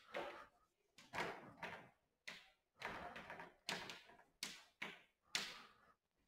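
Chalk writing on a chalkboard: about a dozen faint, short taps and scratches at irregular intervals as the strokes of the letters are made.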